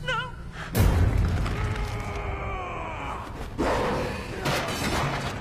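Horror film soundtrack: a woman's quavering, wailing cry, then a sudden loud boom just under a second in, followed by slowly falling tones and more heavy hits.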